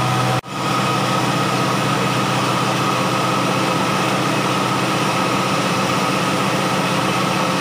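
Pepper grinding mill running steadily with a constant mechanical hum while it turns out ground pepper powder; the sound briefly cuts out about half a second in.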